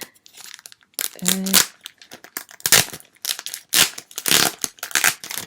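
Plastic face-mask packaging crinkling and tearing as it is opened, in a series of short, sharp bursts. A brief hum from a person comes about a second in.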